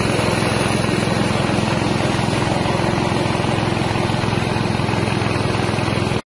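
Small 6.5 hp single-cylinder engine running steadily, driving a mini rice mill while it mills paddy into rice. It stops abruptly near the end.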